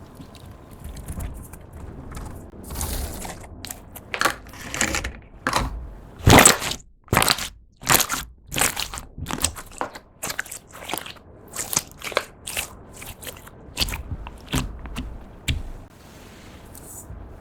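Slime being pressed, giving a run of short crackles and crunchy pops, a few a second, loudest about six seconds in.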